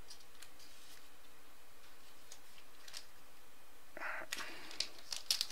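Chromium-finish baseball cards being handled and flipped through: faint slides and light sharp clicks of card on card, with a short rustle about four seconds in and a quick run of clicks near the end.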